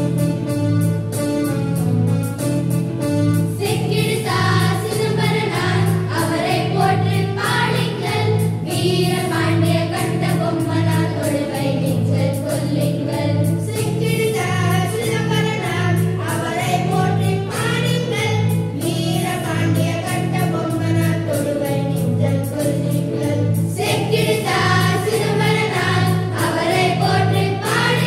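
A group of schoolchildren singing a Tamil song together to a Yamaha electronic keyboard accompaniment with a steady repeating bass pattern. The keyboard plays alone at first and the voices come in about four seconds in.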